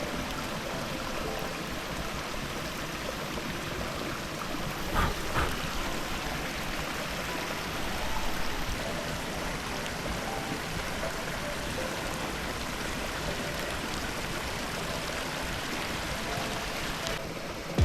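Mountain stream rushing steadily, with a few short sharp cracks about five and eight seconds in.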